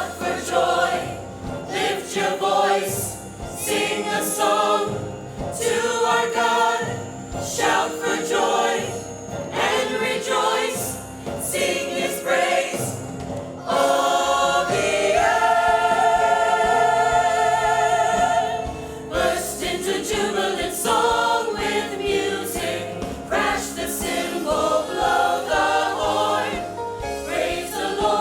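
Church worship band and vocal group performing a gospel-style song: several voices singing together over synth, piano, guitar, bass and drums, with a long held chord about halfway through.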